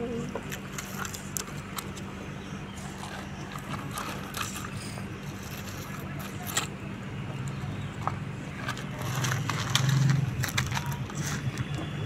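Plastic toy backhoe loader's bucket scraping and scooping through gravel and sandy dirt: scattered small clicks and scrapes of pebbles, over a steady low hum that swells for a moment about ten seconds in.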